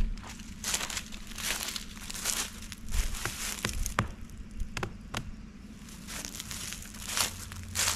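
Footsteps crunching through dry fallen leaves: a run of irregular crunches that thins out about two thirds of the way through, then picks up again near the end.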